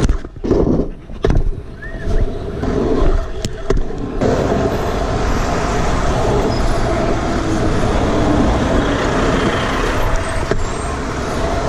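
A pro scooter rolling along, its wheels and deck rattling with a few sharp knocks over the pavement, then, about four seconds in, an abrupt change to a steady rush of wind on the microphone, wheel noise on asphalt and surrounding car traffic as it rides down a busy avenue.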